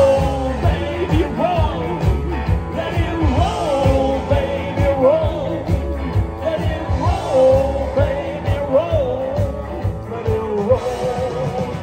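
Live blues band playing an instrumental break: an electric guitar lead with bending, sliding notes over bass and drums.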